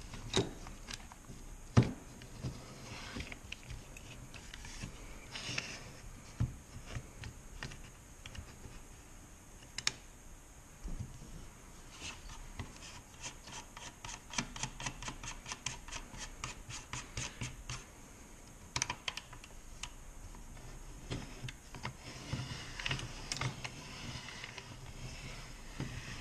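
Small metal and plastic clicks, knocks and scrapes as the parts of an AR pistol brace are handled and fitted onto the rifle by hand. About halfway through comes a quick, even run of small clicks.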